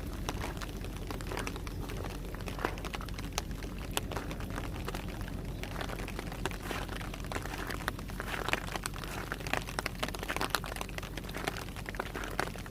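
Rain with hail falling, heard as a steady hiss with many irregular sharp ticks of stones and drops striking.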